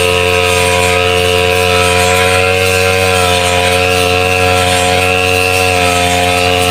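Brush cutter engine running steadily at a constant speed, with a high whine that wavers slightly about every second and a half.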